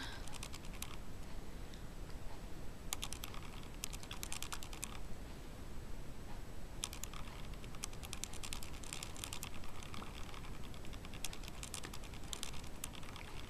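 Faint runs of quick, sticky clicks as lip gloss is worked over the lips with a wand applicator and the glossed lips part, coming in three bunches.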